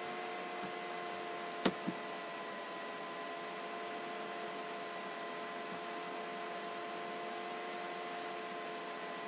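Steady electrical hum of several tones over a constant hiss: the background noise of the recording setup. About a second and a half in come two mouse clicks in quick succession, the first the louder.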